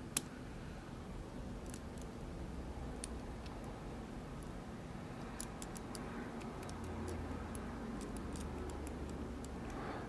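Faint, scattered metallic ticks of a hook pick working the pin stack of an Assa Abloy Litto MP83 euro cylinder under tension, with one sharper click just after the start.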